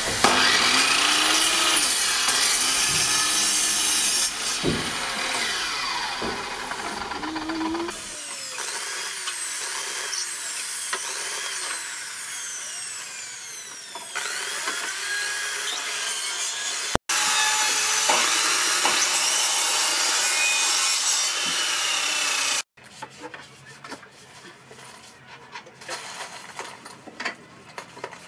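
Woodworking power tools in a run of short cuts: a sliding mitre saw cutting timber, then a drill driving screws into a wooden frame. Near the end it turns quieter, with scattered knocks and clicks.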